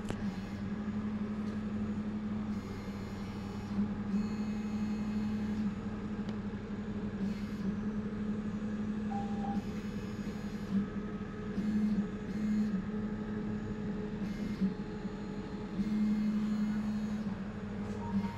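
A steady low electrical hum, with brief patches of faint hiss or rustle on top now and then.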